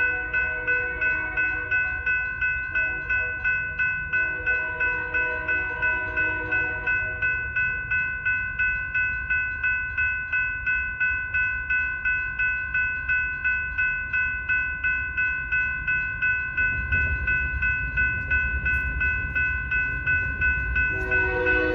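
Electronic railroad crossing bells ringing in a steady, even beat throughout while the gate arms lower. A train horn sounds at the start and again about five seconds in. Near the end a low rumble of the approaching train builds and a louder horn blast begins.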